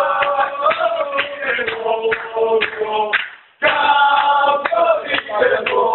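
A group of people singing together over music with a steady beat; the sound cuts out for a moment about three and a half seconds in, then resumes.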